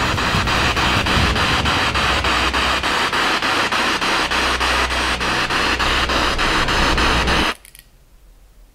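Spirit box radio sweeping through stations: loud static hiss chopped by rapid, regular clicks several times a second as it jumps from frequency to frequency. It cuts off suddenly near the end, leaving faint room tone.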